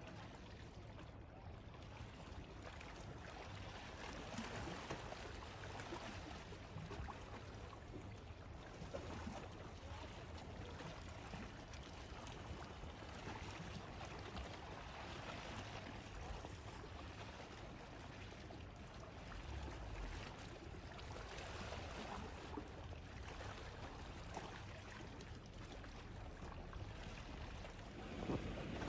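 Faint, steady wind and water noise, with no distinct sound from the burning boat.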